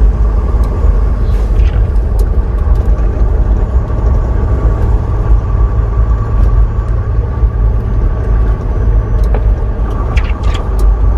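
Semi-truck driving on a rough, icy road, heard from the cab: a steady low engine and road rumble with scattered short rattles and knocks.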